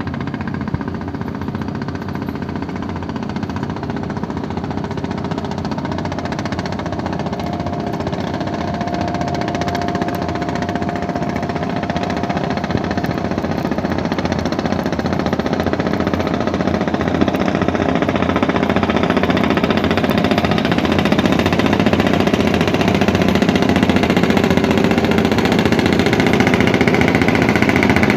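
Engine of a traditional wooden fishing boat running steadily as the boat passes, growing gradually louder as it comes closer.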